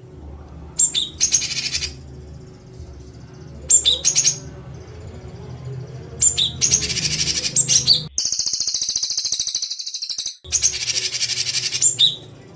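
A songbird's harsh, rapid 'tembakan' (shot) call, a dense high rattle that opens with a sharp note, repeated in about five bursts with short gaps, the fourth a longer unbroken rattle. A low steady hum runs underneath.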